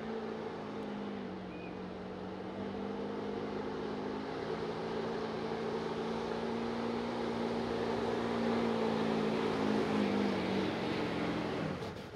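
Pulling truck's engine held at high revs with a steady, droning pitch, growing louder through the run and dropping away sharply just before the end.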